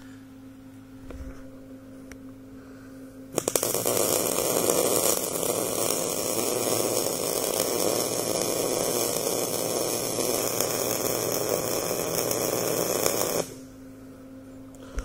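Wire-feed welder arc crackling and sizzling as one weld bead is run, for about ten seconds: it strikes with a few stuttering pops about three seconds in and cuts off suddenly near the end. The welder is set hot, which throws a lot of spatter.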